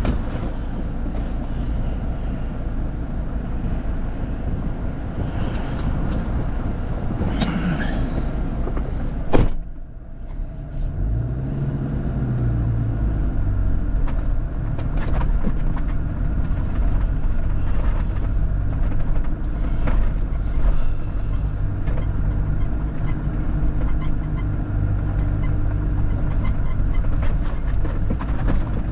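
Off-road 4x4 running steadily with engine and track noise. There is one sharp knock about nine seconds in, then the engine note rises and falls before it settles back to a steady run.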